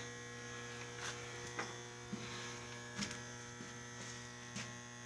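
Steady low electrical mains hum, with a few faint taps scattered through it.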